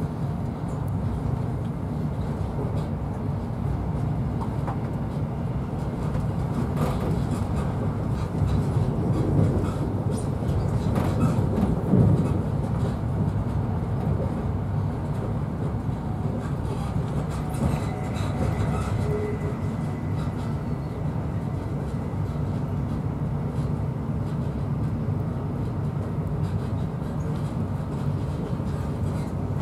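InterCity 125 (Class 43 HST) train running at speed, heard from inside a passenger coach: a steady low rumble of wheels on rail and running noise. It swells louder for a few seconds around the middle.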